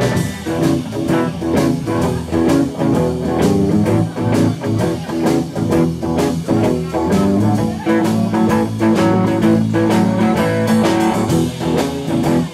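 Live blues band playing, with electric guitars over a drum kit keeping a steady beat.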